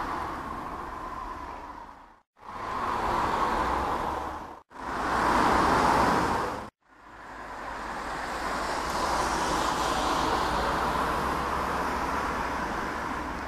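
Distant jet engine noise of an Airbus A330-300 with Rolls-Royce Trent 700 engines passing high overhead: a steady rushing roar that cuts out briefly three times in the first seven seconds, then runs on unbroken and swells a little.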